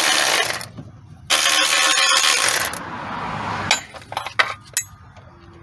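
A power ratchet running in two bursts as it spins out two 10mm bracket bolts, followed by a few sharp metallic clicks and clinks of the socket and bolts.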